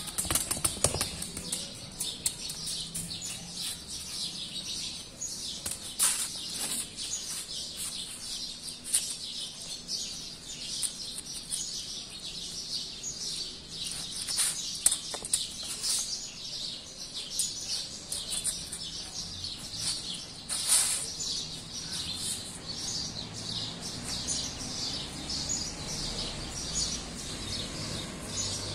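Many small birds chirping in a continuous, busy chorus, with a few brief knocks or rustles about 6, 9, 15 and 21 seconds in.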